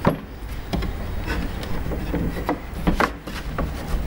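Wooden easel parts knocking and rubbing together as the bottom crosspiece is fitted into place, with several separate knocks.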